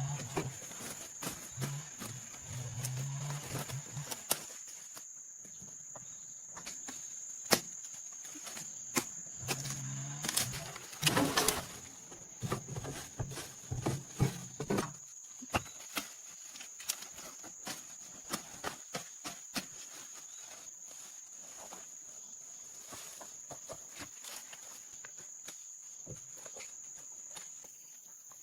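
Crickets or other insects trilling steadily in a high pitch, while a cow moos twice: once at the start and again for several seconds about ten seconds in. Scattered sharp clicks and knocks come through throughout.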